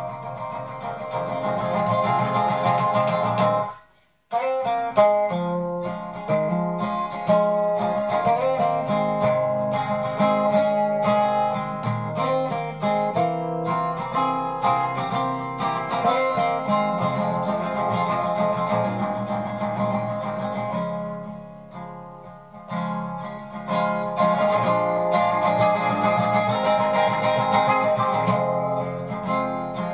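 Acoustic guitar with a capo, played without singing. It cuts out suddenly about four seconds in for half a second, then resumes, and goes softer for a moment a little past twenty seconds.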